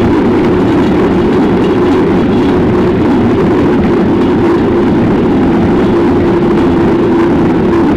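Bicycle's front tyre rolling on asphalt at a steady speed, a loud even hum and rumble picked up by a camera mounted right on the fork, mixed with road noise.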